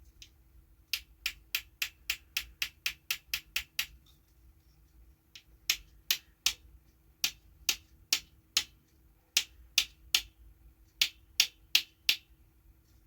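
A small hammer lightly tapping a staple into a cuckoo clock's bellows. It goes in runs of quick, sharp taps, about four a second at first, then a short pause, then more spaced taps.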